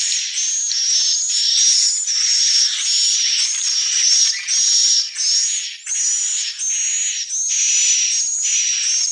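Swiftlet calls: a steady run of high, buzzy twittering chirps, each with a whistled tone on top, repeating about twice a second.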